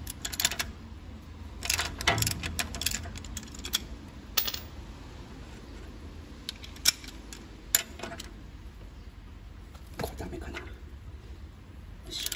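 Hand ratchet and steel socket clicking and clinking on the knuckle-arm stud nuts, in short scattered clusters of clicks, as the nuts are loosened.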